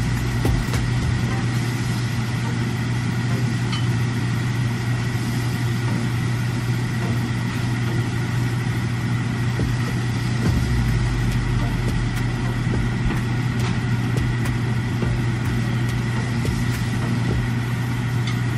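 Steady low hum with a thin high whine, from a range hood fan running over the stove, on top of the hiss of shrimp frying in a pan. Small clicks of a utensil against the pan come now and then.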